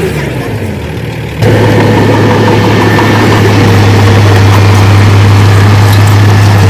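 Heavy diesel engine of earthmoving machinery: its note falls and quietens briefly, then about a second and a half in it cuts back in abruptly and runs loud and steady.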